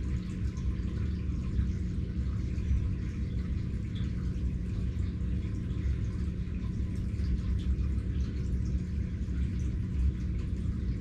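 Steady background noise: a low rumble with a faint hiss over it, even throughout, with no distinct events.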